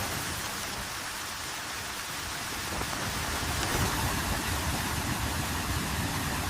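Steady hiss of rain with a low rumble underneath; the rumble fades briefly and builds again after about three seconds.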